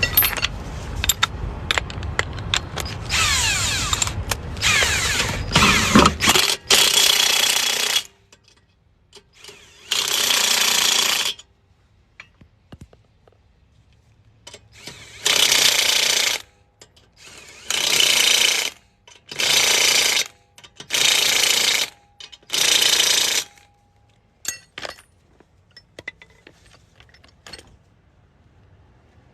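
Impact wrench hammering on lug nuts in short bursts of a second or so: a cluster in the first several seconds, then five bursts in a row, one per lug nut. A low rumble fades out about six seconds in.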